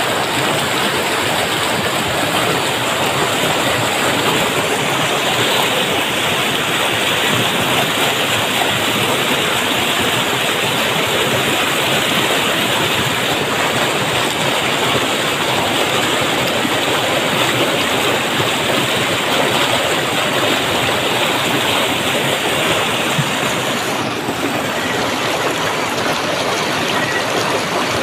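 Fast stream water rushing over rocks: a steady, loud, unbroken rush.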